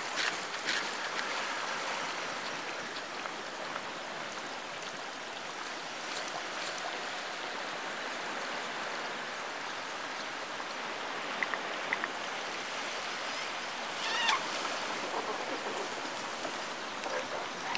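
A steady hiss of background noise, with a short kitten meow about fourteen seconds in and two faint clicks just before it.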